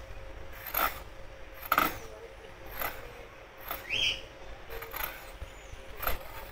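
Faint knocks and clinks of kitchen utensils, about one a second, with a short rising bird chirp about four seconds in.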